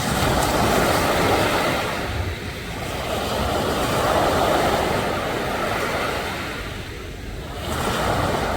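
Ocean surf: waves breaking and washing in, the rush swelling and easing about every three to four seconds.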